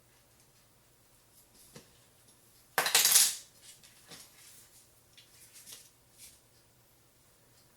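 Small hard metal parts clattering briefly about three seconds in, then a few light clicks and taps.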